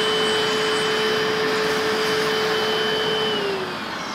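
BISSELL SPOTbot spot cleaner's vacuum motor running with a steady whine and rushing air, then switched off a little over three seconds in, its pitch falling as it winds down.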